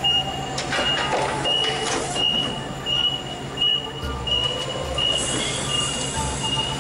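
A forklift's warning beeper sounds in steady, evenly spaced high beeps, about three every two seconds, as the forklift lifts and carries a loaded pallet. Knocks and clatter from the forklift and pallet come through the beeping, and a low rumble joins about four seconds in.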